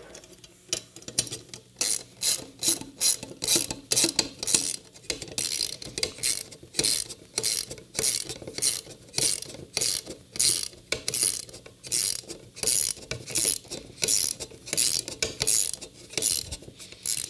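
Hand socket ratchet clicking in repeated back-and-forth strokes, about two a second, driving a bolt down into a hex churro standoff.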